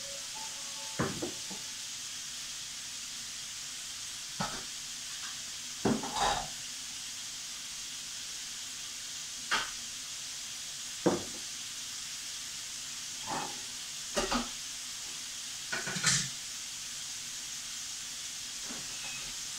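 Chicken strips frying in a pan, a steady sizzling hiss, with scattered clinks and knocks of bowls and utensils being handled now and then.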